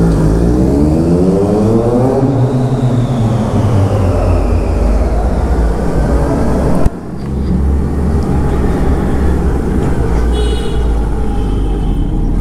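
Suzuki Hayabusa's inline-four engine pulling away hard, its pitch rising steeply over the first two seconds and then easing down. About halfway through the sound breaks off suddenly into a steadier low engine rumble as the bike rides on at lower revs.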